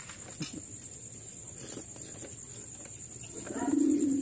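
Crickets trilling steadily in the night, with a short, louder low pitched sound near the end.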